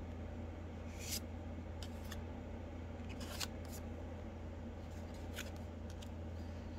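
Magic: The Gathering trading cards sliding and flicking against each other as they are flipped through by hand: several short, sharp swishes, over a steady low hum.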